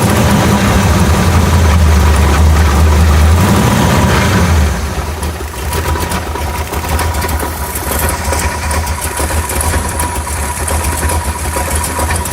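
Big-block Chevrolet 396 V8 engine running, louder for the first four or five seconds, then dropping to a quieter steady idle. From about six seconds in, a thin steady high tone runs alongside the engine.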